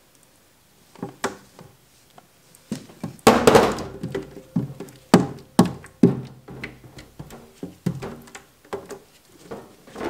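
Silicone spatula knocking and scraping against a plastic pitcher while scooping out soap batter that has thickened too much to pour. It makes a run of dull knocks, with a dense flurry about three seconds in.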